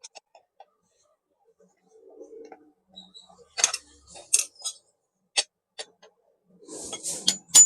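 Screwdriver clicking and tapping against a mixer grinder motor's body while prying out its worn bush, in scattered sharp clicks, with a longer scrape near the end.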